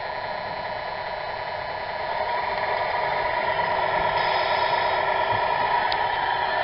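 Steady electric whine from a Tamiya 1/14 RC Volvo tanker truck as its water pump sprays from the rear nozzle, louder from about two seconds in as the truck passes close by.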